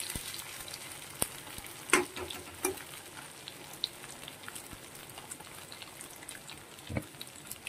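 Cubes of steamed egg sizzling steadily as they fry in oil in a steel kadai. A few sharp clinks come from a metal spatula against the pan as the pieces are turned.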